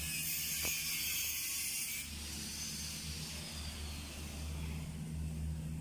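A steady low motor hum with a rumble under it, and a high hiss that drops away about two seconds in.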